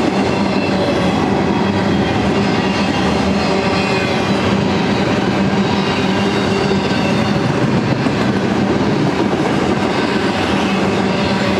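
BNSF double-stack intermodal train's container-loaded well cars rolling past: a steady loud rumble and rattle of steel wheels on rail, with a few faint steady tones over it.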